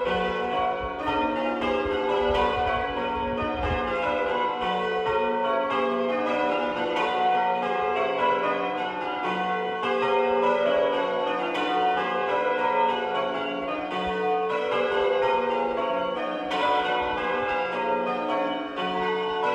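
Change ringing on a ring of eight church bells with a 15 cwt tenor, the bells striking one after another in a steady, unbroken sequence, each strike ringing on into the next.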